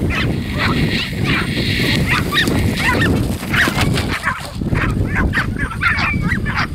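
Dogs yelping and barking excitedly at a lure race, quick high-pitched yelps several times a second: hounds straining to chase the lure. A low rumble runs underneath.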